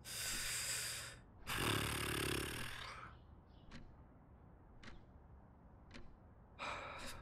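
A man's close-miked breathing: a deep in-breath, then a long sigh with some voice in it, a few small mouth clicks, and another short breath near the end.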